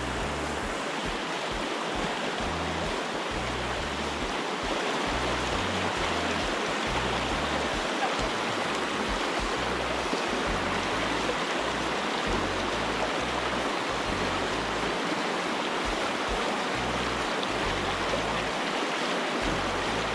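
River rapids rushing steadily over rocks, a constant whitewater roar of water.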